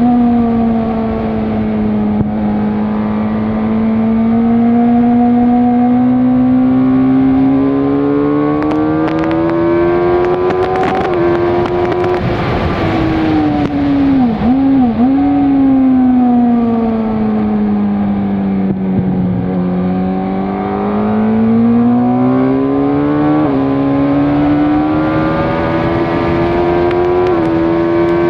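Suzuki GSX-R sportbike's inline-four engine through an aftermarket Werx exhaust, running hard at track pace. The revs rise and fall in long sweeps, with a quick double dip in pitch about halfway through.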